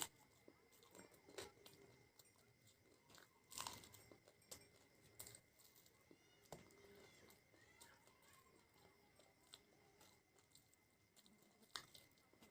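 A person chewing food close to the microphone, with scattered crisp crunches and wet mouth clicks, a louder crunch about three and a half seconds in.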